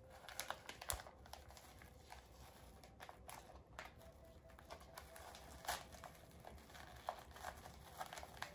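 Faint crinkling and scattered small clicks of a clear plastic cup and its thin plastic bag being handled and turned over.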